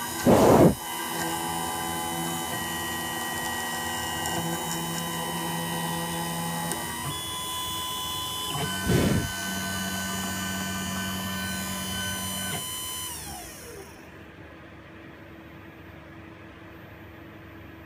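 CNC milling machine for iPhone logic-board work whining with several steady tones that step in pitch as its motors move. About 13 seconds in the whine falls in pitch and dies away, leaving a quieter hum. Two short, loud rushes of noise come near the start and about nine seconds in.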